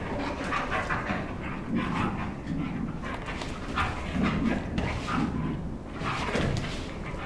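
Dog panting and sniffing, with irregular soft rustling as it moves about on sheepskins and fabric.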